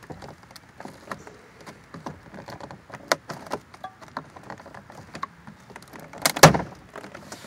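Small plastic clicks and knocks from hands pressing the heated-seat switch and its bezel into a truck's plastic door trim panel, with one louder knock about six and a half seconds in as it seats.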